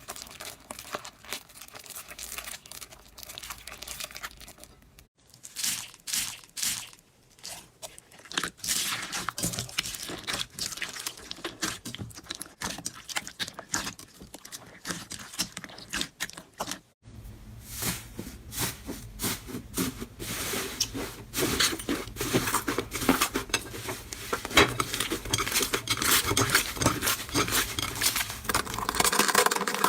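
Slime being squeezed, poked and stretched by hand, giving dense crackling, crunching and popping. It breaks off briefly twice, about 5 and 17 seconds in, as one clip gives way to the next.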